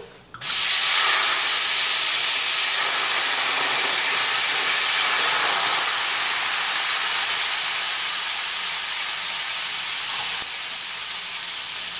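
Wine poured into a hot pan used for browning chicken, which hisses loudly with sizzling steam that starts suddenly and slowly fades as the wine deglazes the pan.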